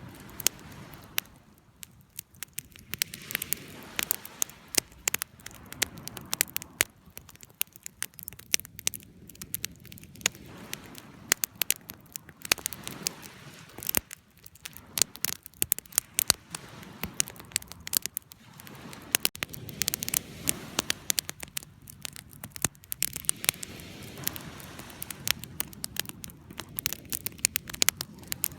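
Wood fire crackling: frequent sharp pops and snaps at irregular intervals over a soft rush of burning.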